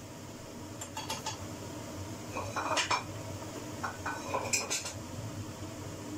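A metal utensil clinking and scraping against a frying pan while pieces of pişi dough are turned in the hot oil. It comes in three short clusters of knocks, the later two with a brief metallic ring, over a steady hum.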